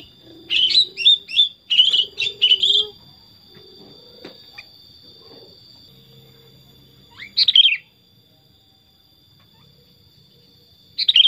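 Sooty-headed bulbul (kutilang) singing: a quick run of about eight short, loud chirping notes in the first three seconds, one short phrase at about seven and a half seconds, and another starting at the very end.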